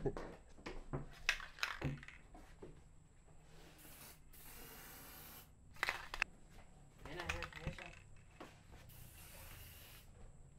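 Aerosol insecticide spray can hissing in bursts: a short puff about four seconds in, then a long spray of more than a second, and another long spray near the end. Knocks and rustling come before the spraying.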